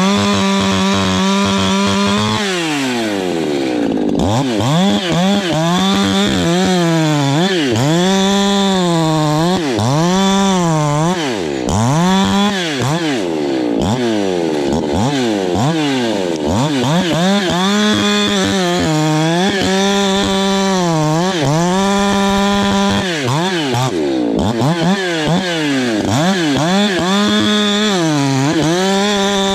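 Ported Echo CS-620P two-stroke chainsaw being broken in, cutting white oak at high revs. Its pitch dips under load and recovers again and again, with one deeper drop about two seconds in.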